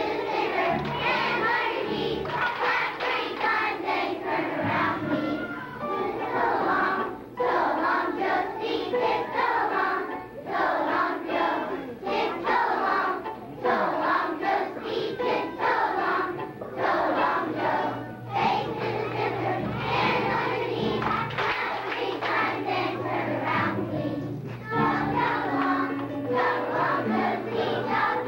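Choir of young children singing a song together in unison, phrase after phrase with short breaks between lines.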